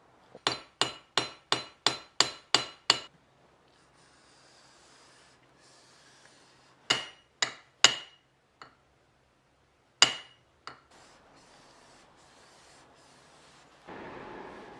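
A small hammer tapping on a Japanese hand plane (kanna) to set its blade: a quick run of about eight sharp, ringing taps, then three more a few seconds later and a single tap near ten seconds in. A soft rubbing starts near the end.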